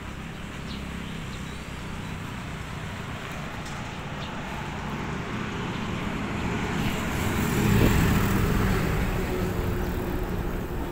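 Road traffic and wind noise heard from a moving bicycle. A motor vehicle grows louder, passes about eight seconds in, then fades.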